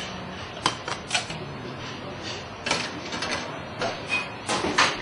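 A metal utensil stirring vegetables in a saucepan, knocking and clinking irregularly against the pan's sides.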